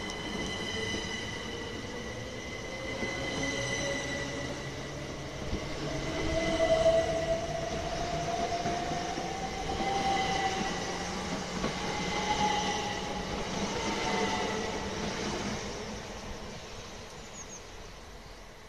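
Southeastern electric multiple-unit train running along the platform, with wheels rumbling on the rails, a steady high whine, and a motor whine that rises in pitch over the first dozen seconds. It fades away near the end.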